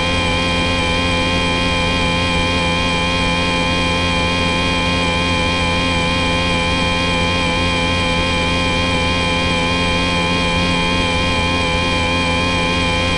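Brushless 3000kV outrunner motor and propeller of an ultra-micro RC airplane running at a steady throttle, heard from a camera riding on the plane: a constant, unchanging whine of several steady tones over an even rush of noise.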